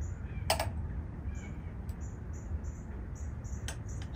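A small bird chirps over and over, a short high note every fraction of a second. A sharp clink about half a second in and a few lighter clicks near the end come from a metal jigger and bottle being handled at a glass of ice.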